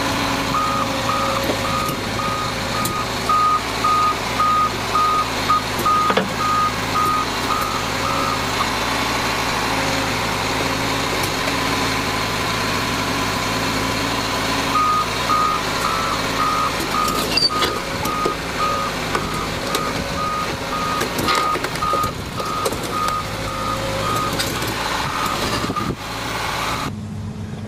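Liebherr crawler excavator moving on its tracks, its diesel engine running steadily under a travel alarm beeping about twice a second. The beeping comes in two long runs with a pause of several seconds between them.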